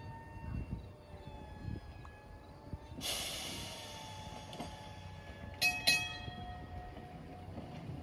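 Rail-yard sounds at an excursion railroad: a hiss starts about three seconds in and fades away, then two sharp ringing strikes come close together about two and a half seconds later.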